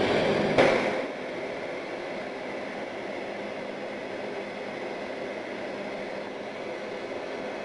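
Handheld hair dryer switched on and running, louder for about the first second, then settling into a steady whoosh of blown air with a faint constant whine.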